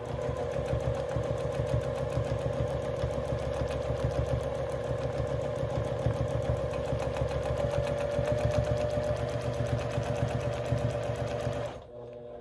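Juki sewing machine stitching at a steady speed for free-motion quilting, with its feed dogs dropped: a fast, even needle clatter over a steady motor whine. It stops shortly before the end.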